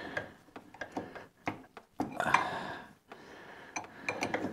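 Open-end wrench clinking and scraping against a nut and the steel of a tractor's hydraulic steering cylinder as it is worked in short turns: irregular sharp metal clicks, with a short scrape about two seconds in.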